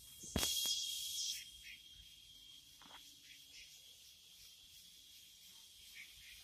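A brief rustle with a click about half a second in, then near silence with a faint, steady, high-pitched insect drone throughout.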